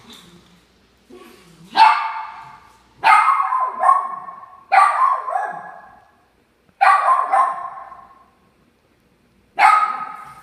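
A dog barking: about six loud single barks, spaced one to three seconds apart, each trailing off as it echoes.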